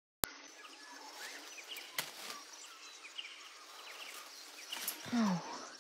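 Outdoor ambience with a soft background hiss and birds chirping in short high calls. About five seconds in comes a girl's short cry falling in pitch.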